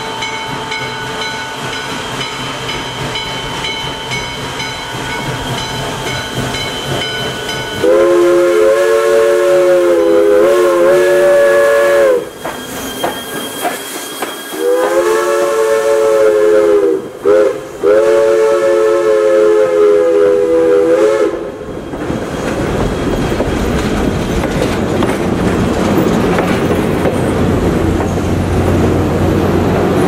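Western Maryland 1309, a 2-6-6-2 Mallet steam locomotive, approaches and blows a Pennsylvania Railroad three-chime steam whistle in a long, long, short, long pattern, the grade-crossing signal. From about 22 s in, the locomotive and passenger coaches roll past with a low rumble and wheel clatter.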